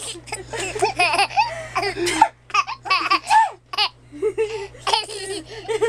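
A one-year-old baby laughing in a string of short, high-pitched bursts.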